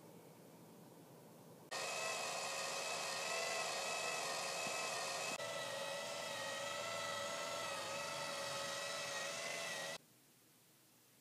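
Steady electronic whirring sound effect made of many held, slightly wavering tones. It starts suddenly about two seconds in, shifts slightly partway through and cuts off suddenly near the end.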